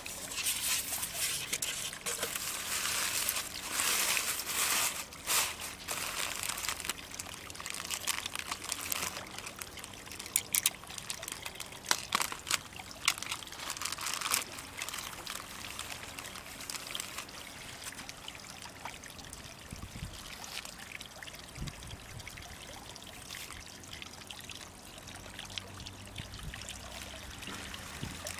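Water trickling and pouring, louder and more splashy over the first fifteen seconds with a few sharp splashes, then settling into a softer, steady trickle.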